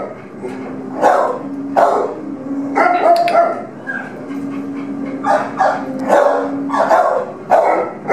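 Dogs barking in a shelter kennel, with repeated sharp barks coming roughly once a second and a few in quick pairs.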